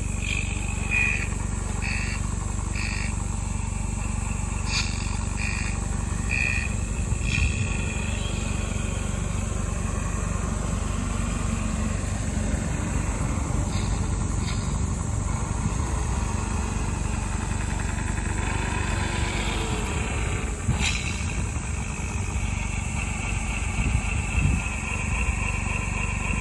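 Tamiya 1/14 scale radio-controlled semi truck driving on asphalt: its electric motor and gearbox whine rises and falls in pitch as it speeds up and slows, over a steady low rumble. A short high chirp repeats about once a second for the first seven seconds or so.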